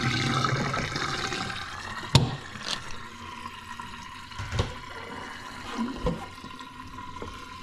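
Water draining out of a sink after the plug is pulled, loudest at first and fading over the first few seconds. A few sharp knocks come through during the draining.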